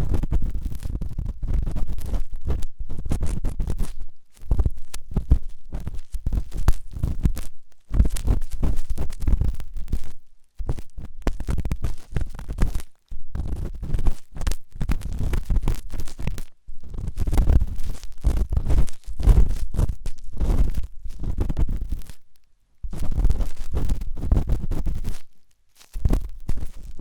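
Close-miked ASMR ear cleaning: a tool scraping and rubbing hard inside a microphone's ear, giving dense scratchy crackling with a deep rumble. It comes in stretches of a few seconds, broken by brief silences about every two to four seconds.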